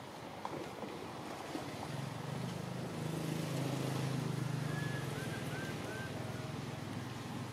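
Low motor drone that swells and then eases off, like a passing engine. A few short high chirps come about two-thirds of the way through.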